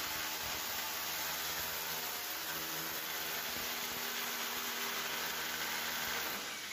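Steady machine hum with an even hiss, holding at one level and falling away near the end.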